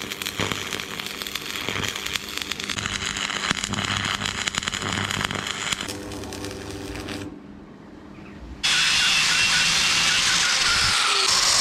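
Metalworking power tools in a series of short clips: a dense, rapid crackle for the first half, a short quieter gap, then a loud, steady hissing grind.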